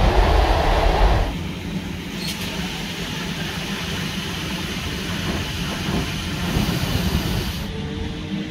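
NMBS AM75 electric multiple unit running: a loud low rumble in the carriage, which drops suddenly about a second in to quieter, steady running and rail noise with a low hum as the train moves along a station platform.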